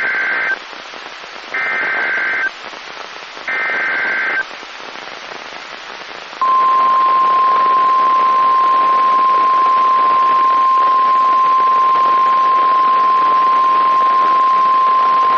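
NOAA Weather Radio emergency alert over a hissy radio signal: three one-second bursts of SAME digital header data, about two seconds apart, then the steady single-pitch 1050 Hz warning alarm tone held for about nine seconds. Here it heralds a tornado warning.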